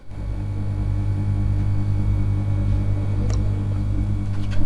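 F7 bass-tube subwoofer driven by an amplifier with a 5 Hz sine test tone from an online tone generator: a steady low drone with a stack of buzzing overtones, starting at once when the tone is switched on.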